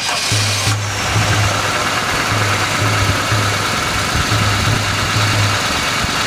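Toyota Sprinter Marino's four-cylinder engine catching within the first second and settling into a steady idle. It starts straight away after standing unused through the winter.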